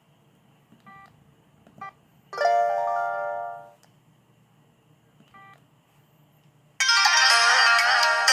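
ZTE Z222 mobile phone playing ringtones through its small speaker. There are a few short electronic beeps and, about two seconds in, a brief chime of stepped tones; near the end a full synthesized ringtone melody starts suddenly and loud.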